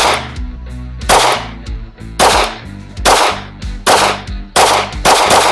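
Beretta APX A1 Full Size 9mm semi-automatic pistol firing about seven aimed shots at a steady pace, roughly one a second and a little quicker near the end. Each shot is a sharp crack followed by a brief echo.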